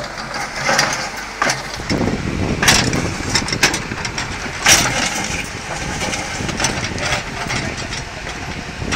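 Backhoe loader's diesel engine running as its rear bucket scrapes and drags soil and stones across the rocky ground. Scattered sharp knocks and clatters of rock come through. The engine grows louder about two seconds in.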